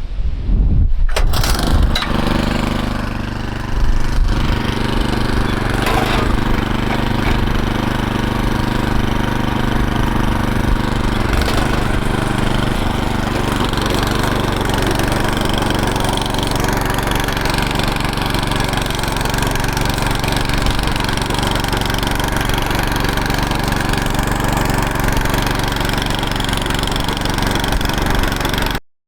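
Troy-Bilt Mustang tiller's small gas engine being started. It catches about a second in, dips briefly around three seconds, then runs steadily.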